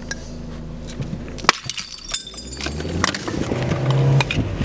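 Car engine running, heard inside the cabin, with a run of sharp knocks and clinks about a second and a half in. The engine grows louder toward the end.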